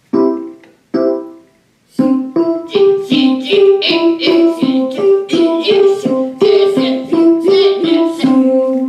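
Keyboard with a piano-like tone strikes a C major chord twice, about a second apart, then plays the C–E–G notes one at a time in a quick broken-chord run, about two to three notes a second, with a voice singing along.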